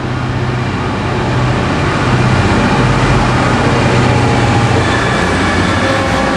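GBRf Class 66 diesel-electric locomotive with its two-stroke EMD 710 engine running under power as it approaches and passes close by, growing louder over the first couple of seconds, its engine note dropping about five seconds in as it goes past. Near the end the loaded ballast wagons start rolling by behind it.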